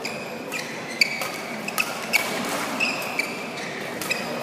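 Badminton rally: a shuttlecock struck back and forth by rackets, several sharp hits with the loudest about a second in, mixed with short high squeaks of court shoes on the mat and the murmur of a large hall.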